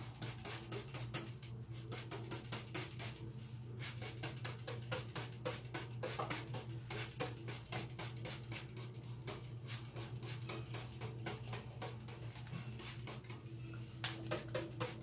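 Handheld trigger spray bottle squirting water onto hair in quick short spurts, several a second, over a low steady hum.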